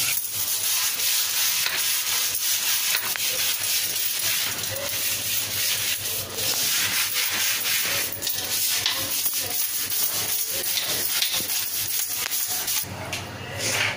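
Hand scrub brush scrubbing a soapy sink basin in quick repeated strokes, with tap water running into the sink.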